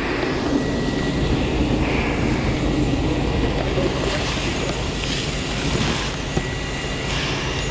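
Fire hose spraying water from a pistol-grip nozzle onto a burning lorry cab: a steady rushing spray over a constant low rumble, with a faint steady high tone.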